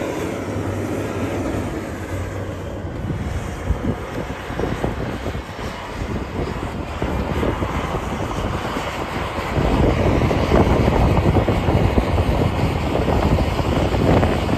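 John Deere 9510RT track tractor's diesel engine running under load as it pulls a Lemken chisel plough through the soil, a steady low drone that grows louder about ten seconds in.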